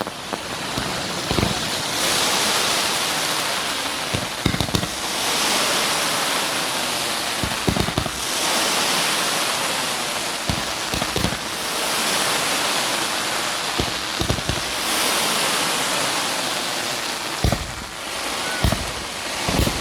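Fireworks going off: repeated hissing swells lasting a couple of seconds each, with sharp bangs scattered among them.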